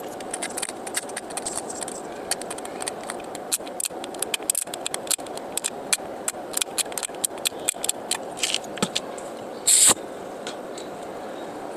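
Small metal tools clicking and scraping against a circuit board during soldering work, with many short irregular ticks over a steady hum. A short loud hiss comes just before the end.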